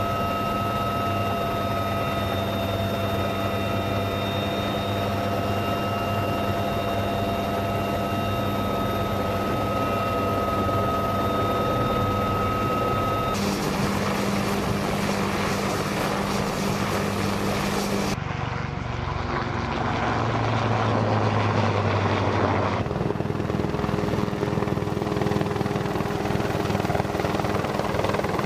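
UH-1Y Venom helicopter running, its twin turboshaft engines and rotor making a steady turbine whine over rotor noise. The sound changes abruptly three times, between steady whining tones and a rougher rushing noise.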